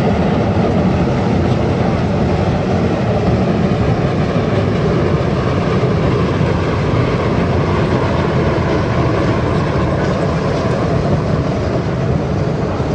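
Biomass sawdust burner firing at full flame, giving a loud, steady rushing noise.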